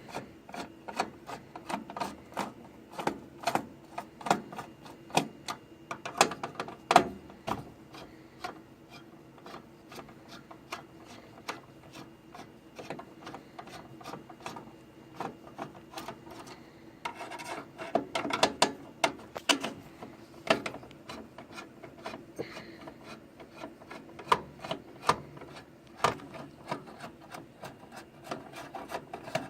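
Hands working on a desktop computer case: irregular clicks, knocks and scraping of metal and plastic parts, busiest at the start and again a little past halfway, over a faint steady hum.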